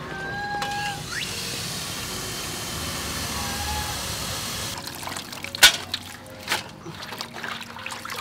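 Tap water running steadily into a metal bowl, a continuous splashing stream that stops about five seconds in. After it come scattered handling sounds of wet vegetables and metal bowls, with a sharp clink and small splashes.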